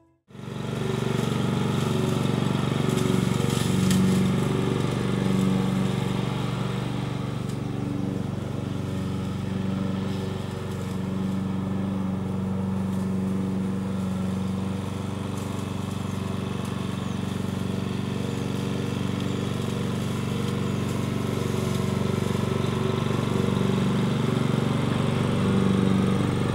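Walk-behind petrol-engine lawn mower running steadily while being pushed over grass: a constant engine hum with small swells in loudness.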